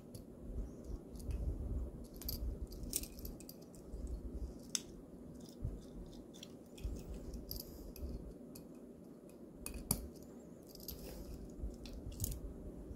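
Scattered small metallic clicks and clinks of a steel link bracelet being handled and fitted to a watch case with a spring bar tool, over a low handling rumble.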